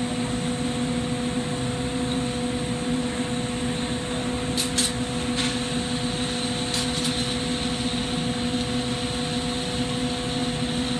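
Steady hum and hiss of a glassblowing shop's ventilation and torch flames, with a few light clicks midway through.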